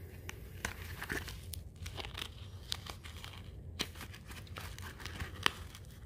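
Rustling and crinkling as the hatchet multitool's small carry case is handled, with scattered light clicks and taps.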